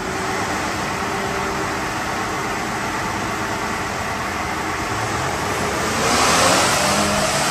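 2023 Toyota Tundra's 3.4-litre twin-turbo V6 running under load on a chassis dyno. It is steady at first, then about six seconds in it gets louder and starts rising in pitch as a pull begins.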